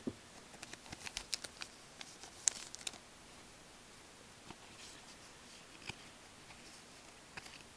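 Trading cards being flipped through in gloved hands: quick soft flicks and clicks of cardstock over the first three seconds, then only a few faint ticks.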